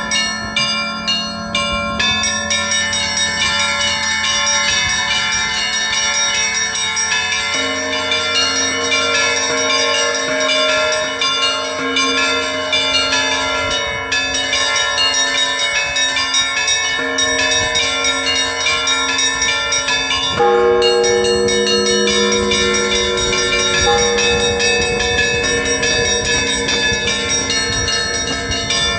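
Russian Orthodox monastery bells rung together in a continuous peal: quick strokes on the small bells ring over the deeper bells. A heavier bell comes in about a third of the way through, and a loud low bell stroke lands about two-thirds in.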